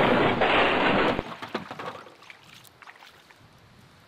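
Shallow water splashing and sloshing as a person steps out of a kayak and pulls it toward the bank, stopping abruptly about a second in, followed by a few fainter splashes.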